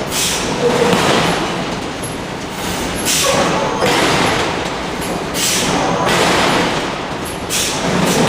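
Giant hydraulic forging hammer striking hot steel, four heavy blows about two to three seconds apart, each fading into the steady din of the forge shop.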